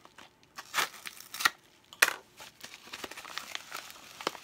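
A mailing envelope being opened by hand: irregular crinkling and ripping of the packaging, with a sharp rip about two seconds in.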